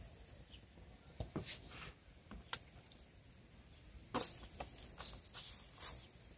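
Kitchen tongs clicking and tapping as raw chicken breasts are set down and shifted on a copper grill mat: scattered short clicks, busiest over the second half, with a faint hiss.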